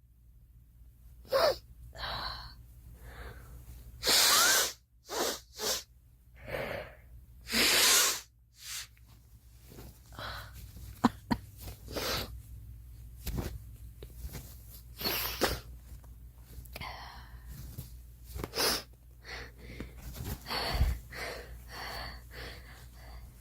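A woman sneezing repeatedly, with breathy inhales and sniffles between the sneezes; the loudest, longest sneezes come about 4 and 8 seconds in.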